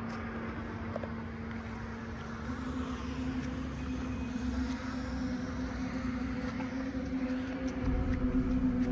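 A motor vehicle's engine running steadily over a low rumble. Its hum steps up slightly in pitch a couple of seconds in and grows louder toward the end.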